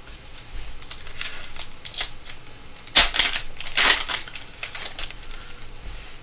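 Wrapper of a Panini Revolution trading card pack crinkling in the hands as the pack is opened and the cards are pulled out, in a run of short crackles that are loudest about three and four seconds in.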